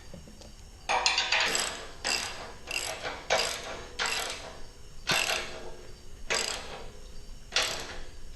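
Hand socket ratchet wrench cinching down a nut on a bolt, its pawl clicking in a short burst on each swing of the handle. The bursts start about a second in and repeat at an uneven stroke-by-stroke pace.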